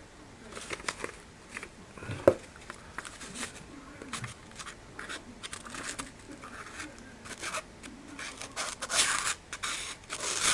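Folding knife's tanto blade cutting a sheet of paper: a series of irregular scratchy, rasping cuts with paper rustling, and a sharp click about two seconds in. The edge snags and tears the paper rather than slicing cleanly, the sign of a dull blade.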